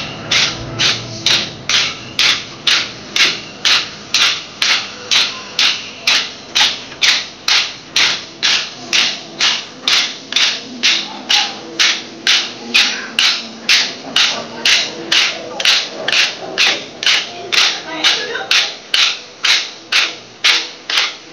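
Kolatam dancers striking their wooden sticks together in unison, a sharp clack about twice a second in a steady, even rhythm.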